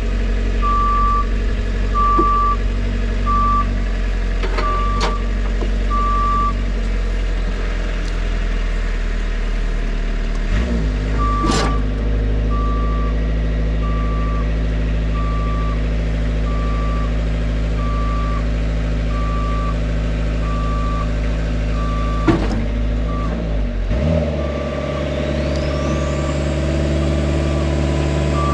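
Engine of an aerial boom lift running while the platform swivels and moves, its motion alarm beeping about once a second. The alarm pauses for several seconds, and the engine note changes twice. There is a sharp knock about 11 seconds in and another about 22 seconds in, and a rising whine near the end.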